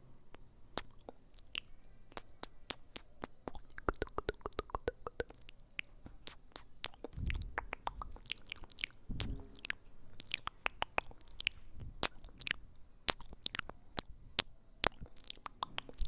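Close-miked ASMR trigger sounds: a rapid, irregular run of sharp clicks and crackles, with two brief low, muffled thumps about halfway through.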